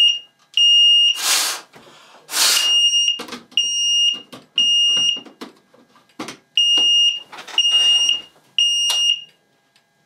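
Fire alarm sounder beeping a high-pitched US temporal-three tone: three short beeps, a pause, and three more, repeating, then falling silent near the end. The alarm has been set off because the optical smoke detector has tripped again. Two loud hissing rushes of noise cut in about one and two and a half seconds in.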